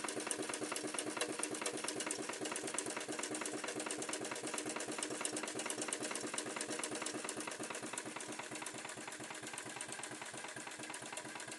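3-inch scale Marshall traction engine running under steam, with a rapid, even beat of exhaust and working parts that gets a little quieter in the second half.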